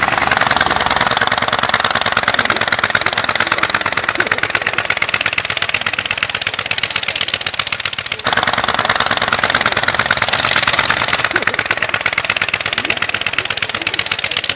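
Blériot XI monoplane's engine running at full power as the aircraft flies low, a fast even beat of exhaust pops. It breaks off abruptly about eight seconds in and comes straight back.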